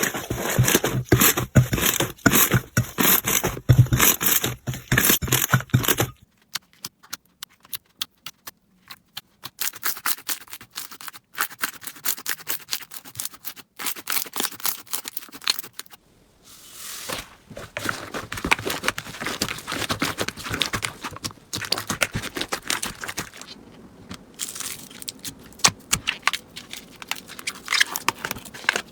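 Slime being squeezed and poked by hand, making dense crackling and popping clicks. The clicking is loudest and thickest at the start, turns sparse and quieter about six seconds in, then grows dense again after the midpoint.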